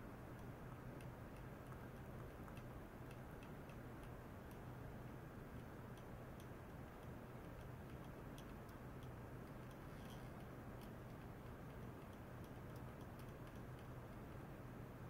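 Faint room tone: a steady low hum with faint, irregularly spaced ticks, a few a second.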